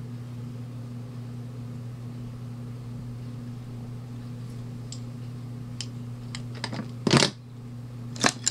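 Handling noise from a camera being moved by hand: scattered clicks and rustles starting about five seconds in, loudest about seven seconds in as it brushes against satin fabric. A steady low electrical hum runs underneath.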